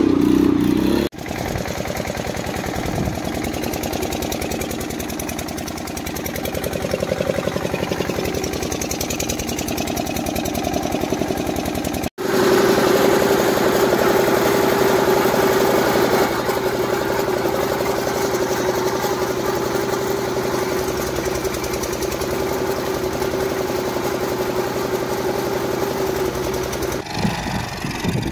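A small engine running steadily, broken by two abrupt cuts; after the second cut, about twelve seconds in, a steady pitched drone holds until near the end.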